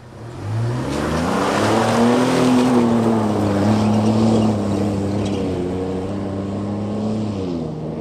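Pickup truck accelerating hard on loose dirt: the engine revs up about half a second in, with tyres spraying dirt and gravel, then holds a steady note and drops in pitch near the end as the truck pulls away.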